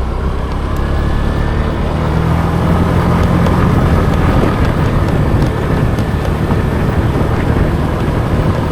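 Motorbike engine running while riding along, with heavy rumbling wind on the microphone.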